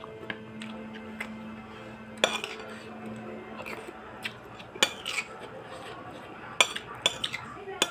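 Metal spoon clinking and scraping against a ceramic bowl while eating rice, in a series of sharp, irregularly spaced clinks.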